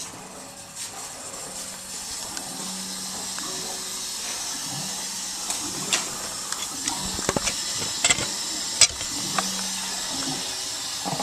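Water hissing out through a water heater's drain valve, getting louder over the first few seconds and then steady. A few sharp clicks and knocks come between about six and nine seconds in.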